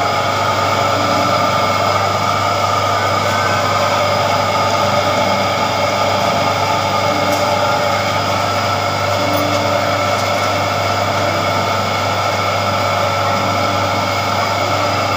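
Sugarcane juice machine's motor running steadily, a continuous mechanical hum with a whine in it and no change in pitch or level.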